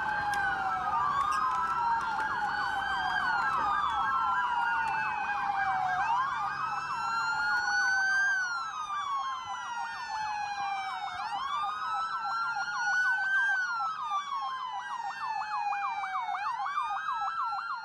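Several police sirens wailing at once, their slow rising-and-falling cycles overlapping out of step.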